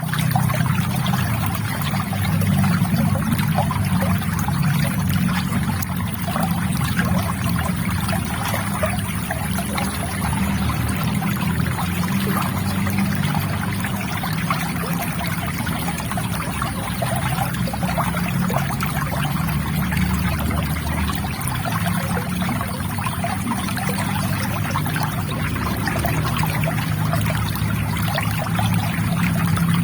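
River water trickling, a steady continuous flow.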